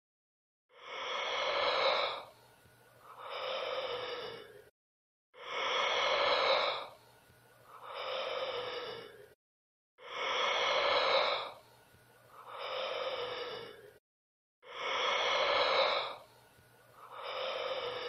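A person's yawn: a long, loud breathy voiced intake followed by a quieter sighing exhale, each about a second and a half long. The same yawn repeats identically four times, about every four and a half seconds, as a loop.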